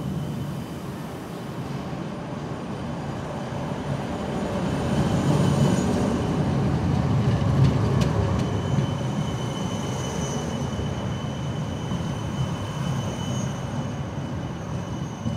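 Red low-floor electric tram passing close by on street rails, its rumble and wheel-on-rail noise swelling to a peak around the middle and then easing off. A thin high whine runs over it.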